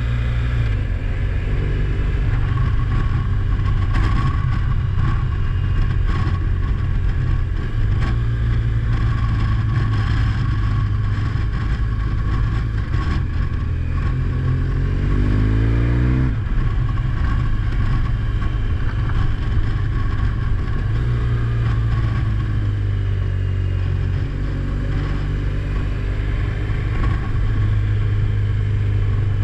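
A car engine runs steadily while driving. Midway through, the engine pitch rises for about two seconds, then drops suddenly.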